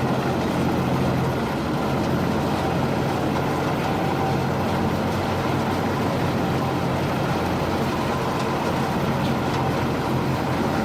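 Komptech Axtor 6010 shredder running: a steady drone from its engine and shredding drum.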